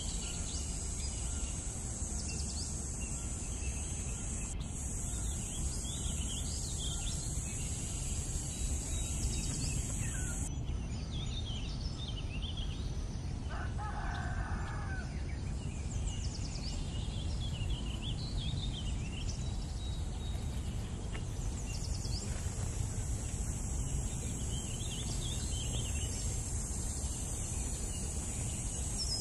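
Farmyard ambience: a rooster crows once about fourteen seconds in, over small birds chirping, a steady high hiss and a low rumble.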